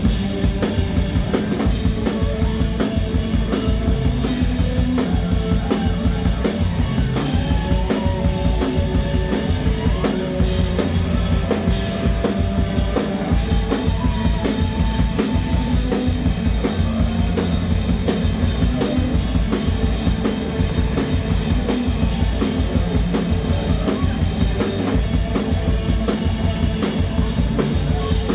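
A band playing rock music, with the drum kit keeping a steady, driving beat under held instrumental notes.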